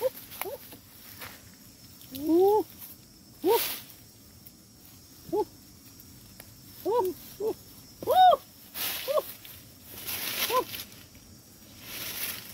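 About nine short animal calls that rise and fall in pitch, each under half a second, at irregular gaps. Between them come several bursts of dry grass and leaves rustling as a bamboo pole is worked into a burrow.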